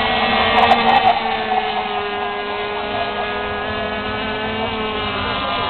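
Radio-controlled racing powerboats running flat out: a steady, high engine whine with several tones, its pitch drifting slightly as the boats race.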